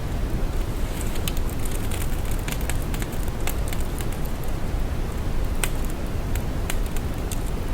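Synthetic brown noise: a steady, deep, even hiss weighted toward the bass, with scattered soft crackles and clicks sprinkled over it.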